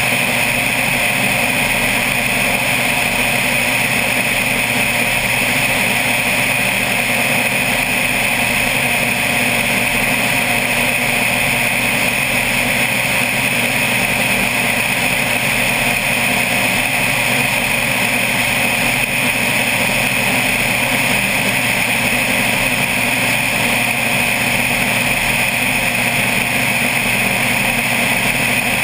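Single-engine propeller plane's engine and propeller running steadily in cruise, close up from outside the fuselage next to the engine cowling, an unchanging drone with no change in pitch.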